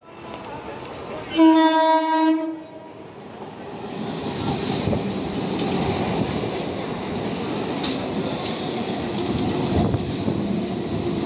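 Suburban electric multiple-unit local train sounding one horn blast of about a second, then rolling past close by, the rumble of its wheels and coaches building up and holding steady.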